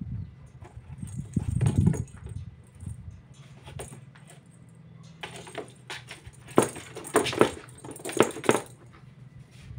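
A kitten scuffling and scratching on the cardboard floor of a box, its claws scraping the card: a low bump a second or two in, then a run of sharp scratchy scrapes in the second half, the loudest of them about two-thirds through.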